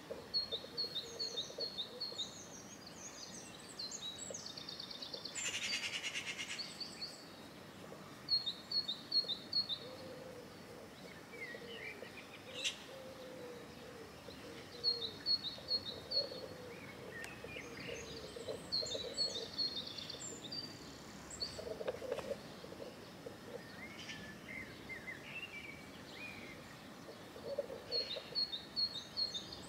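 Small birds chirping: short phrases of quick high chirps, repeated every few seconds over a steady background hiss.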